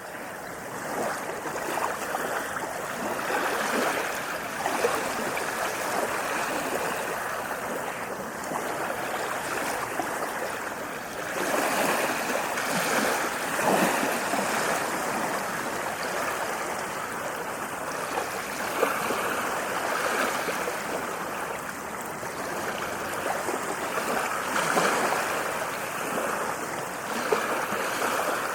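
Stream water babbling and gurgling continuously, swelling and easing a little.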